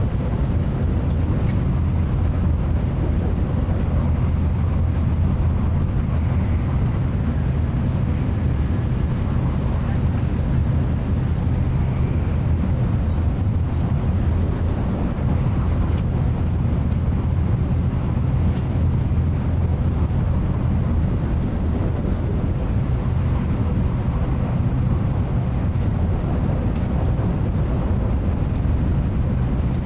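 Cabin noise inside a Nozomi Shinkansen bullet train running at steady speed: an even, deep rumble from the running gear and track with a hiss of air and rolling noise over it.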